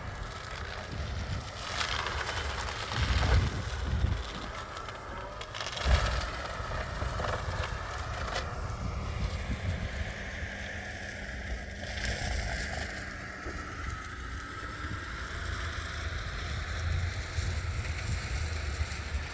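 Heavy brush-clearing machinery running steadily at a distance, with a few heavy thumps a few seconds in and wind buffeting the microphone.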